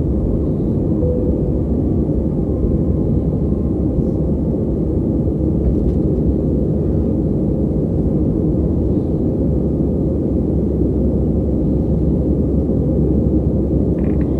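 Steady low roar of an Airbus A320's engines and airflow heard inside the passenger cabin, unchanging in level throughout.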